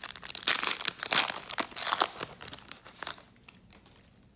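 Foil wrapper of a Topps Chrome trading-card pack crinkling and tearing as the pack is opened and the cards are slid out. It stops about three seconds in.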